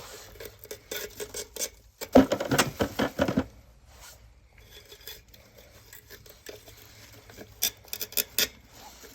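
Crusty, partly disintegrated mesh being worked out of a diesel heater's burn chamber, with metal clinking and scraping. A dense rattling scrape comes about two seconds in and lasts over a second, and a few sharp clinks follow near the end.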